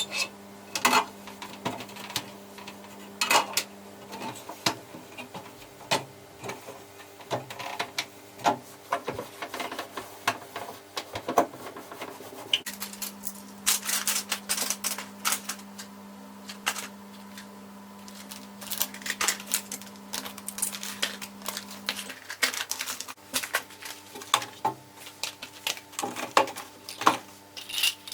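Kitchen containers and jars being handled, set down and shuffled on shelves: many irregular clicks, taps and light clinks, busier in stretches, with a faint steady hum that starts and stops twice.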